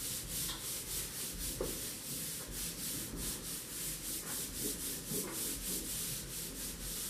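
Whiteboard being wiped clean by hand: a steady run of quick back-and-forth rubbing strokes, about four a second.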